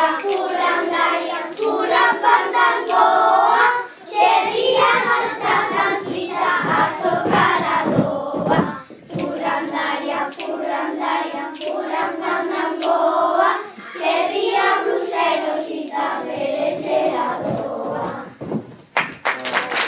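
A group of young children singing a song together, unaccompanied, in held phrases with short breaks, with some hand claps among the singing. Applause starts just before the end.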